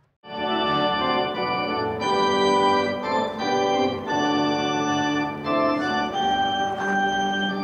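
Organ music: slow, sustained chords held for about a second each, beginning right after a brief silence.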